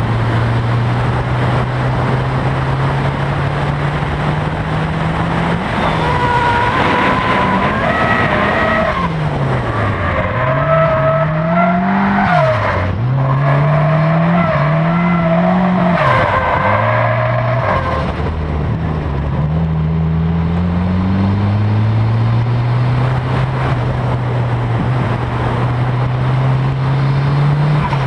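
Nissan S13 Silvia's turbocharged SR20DET inline-four: a steady engine note, then from about six seconds in the revs rise and drop sharply several times while the tyres squeal through a drift. After about eighteen seconds the squeal stops and the engine pulls steadily back up in revs.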